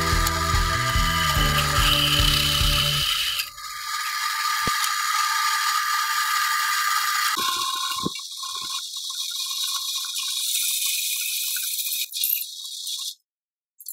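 Drill press boring through a steel box tube with a toothed hole cutter. For the first three seconds or so the machine runs with a low rhythmic rattle, then a steady high-pitched cutting hiss takes over, changing abruptly midway and cutting off suddenly near the end.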